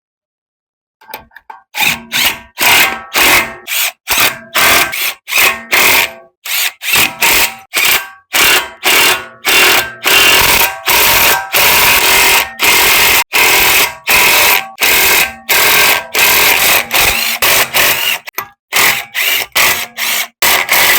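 A power tool run in many short trigger bursts, roughly two a second with a few longer runs, each burst a steady whine with a buzzy edge.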